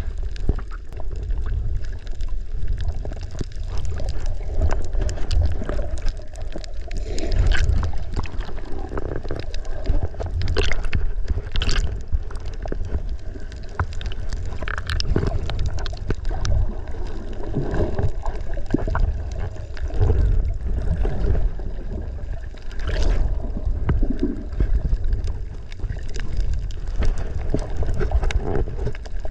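Water heard through a submerged camera: a muffled, steady low rumble with gurgling water movement and occasional sharp clicks.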